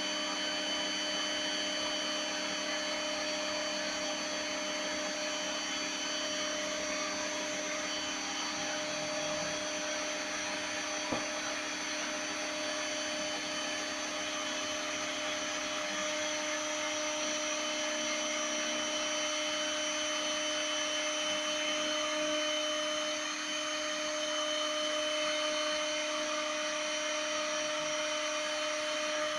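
Spindle motor of a small CNC milling machine running steadily with a constant whine while milling a circuit board, with one brief click about eleven seconds in.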